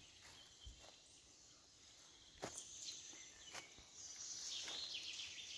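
Quiet forest ambience: a few soft cracks and rustles in the leaf litter from a person moving through the undergrowth. A faint high-pitched sound from insects or birds rises in the second half.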